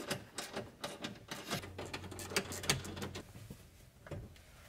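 A run of irregular light clicks and knocks as hands handle parts by the floor, thinning out about three seconds in.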